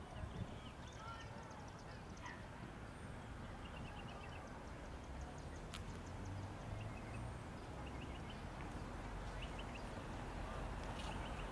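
Low rumble of a distant diesel locomotive approaching, slowly growing louder, with short bird chirps and trills every few seconds.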